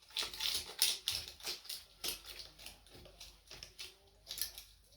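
Irregular light taps and scrapes of hand work on stone and steel bar, a quick run of small strikes at uneven spacing.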